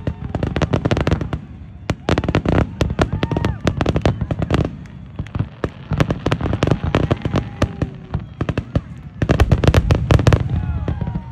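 Fireworks going off: dense volleys of sharp bangs and crackles near the start and again near the end, with sparser bangs in between.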